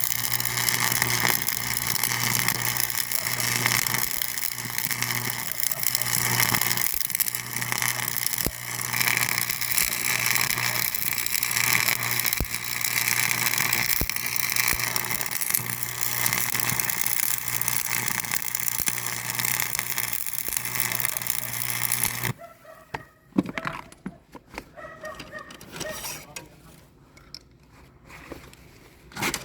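Steady machine running noise with a constant low hum that cuts off abruptly about 22 seconds in, leaving only faint scattered clicks and knocks.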